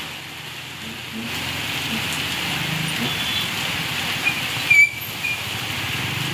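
Steady rain hiss over street traffic, with motorcycle and scooter engines running through water on a flooded road. A short high-pitched squeal or beep about five seconds in is the loudest sound.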